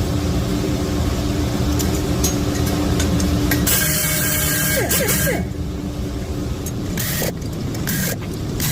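Valve seat grinder running steadily, a 45-degree stone cutting the exhaust valve seats of a Toyota 3VZ-E cylinder head. A harsher grinding hiss comes about four seconds in, then the motor winds down in falling pitch around five seconds in. After that come a few short clicks and knocks.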